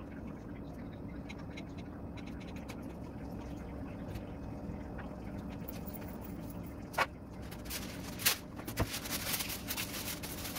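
Steady low hum from the kitchen, then a single knock about seven seconds in, followed by a couple of seconds of scraping and rustling handling noises near the end.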